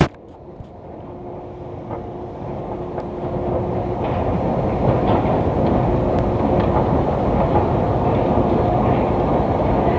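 A steady mechanical rumble with some clatter, growing louder over the first few seconds and then holding steady.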